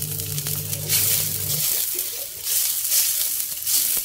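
Sliced chilies, shallots and garlic sizzling in hot oil and a little water in a stainless-steel wok as oyster sauce is poured in, with louder surges of sizzling as the mixture is stirred with a spatula. A steady low hum runs underneath and cuts off about a second and a half in.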